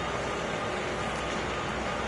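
Steady rushing outdoor noise with a low rumble and a faint constant hum underneath, unchanging throughout.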